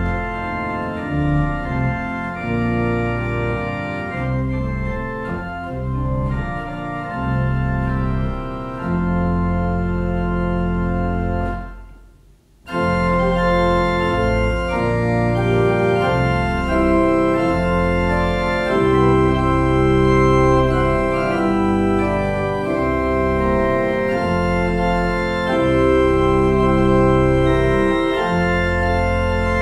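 Church organ playing a hymn tune in sustained chords that change every second or two. It breaks off briefly about twelve seconds in, then starts again with a fuller sound.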